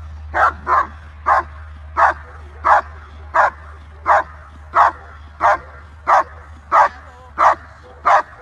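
German Shepherd barking at a helper's bite pillow during protection training: a steady, even run of short, loud barks, about one and a half a second.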